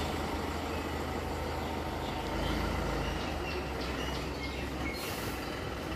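Goods truck's engine running as it pulls away at low speed: a steady low rumble that swells slightly about halfway through.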